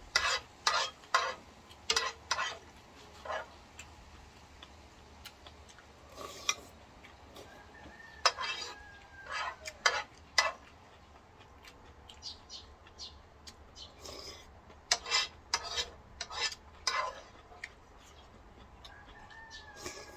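Noodles and broth being slurped and eaten in clusters of short bursts. A rooster crows faintly twice, about eight seconds in and again near the end.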